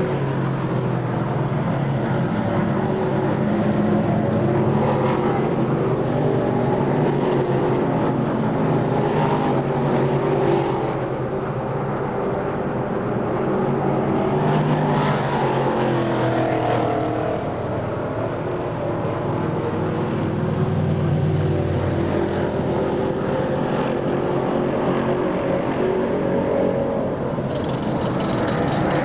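Dirt modified race cars' V8 engines running on the track, several at once, their pitch rising and falling as the cars pass.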